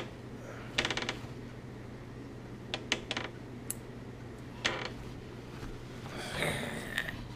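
Sharp metallic clicks and taps from steel feeding tongs worked at a lizard's mouth: a quick rattle of clicks about a second in, then single clicks around three and four and a half seconds, over a steady low hum.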